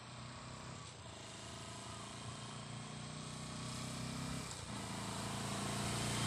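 Motorcycle engine running steadily at cruising speed, with road and wind noise, growing gradually louder.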